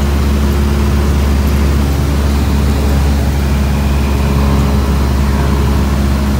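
Cessna 172SP's four-cylinder Lycoming engine and propeller running steadily in flight, a loud, even low drone heard from inside the cabin.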